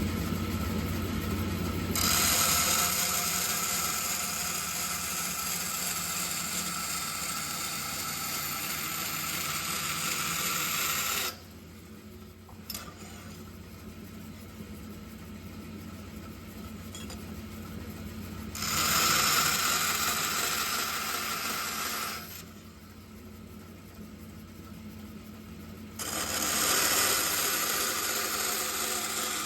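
DoAll 2013-U 20-inch vertical band saw running, a steady low hum, with three stretches of loud hissing noise over it: a long one of about nine seconds starting a couple of seconds in, then two shorter ones of about three seconds each.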